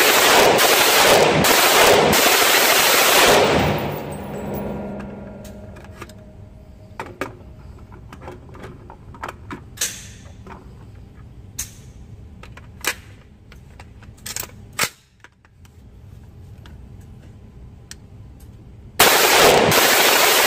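AR-15 in .223/5.56 firing a long rapid string of shots for about three and a half seconds, the indoor range echoing as it stops. Scattered sharp clicks and clinks follow, then another rapid string of fire starts near the end.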